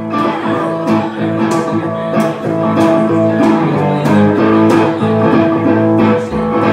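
Electric guitar strumming chords in a steady rhythm through an amplifier: an instrumental break between sung lines of a song.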